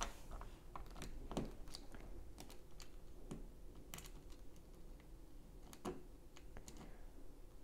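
Small plastic Lego pieces clicking and clattering as fingers pick through a loose pile of them: light, irregular clicks, a few of them louder.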